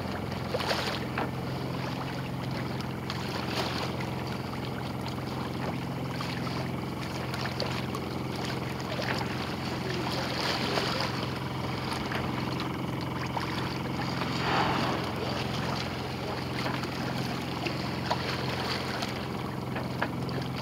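A boat underway at sea: a steady low hum with water washing past the hull and wind on the microphone, with a couple of brief louder whooshes partway through.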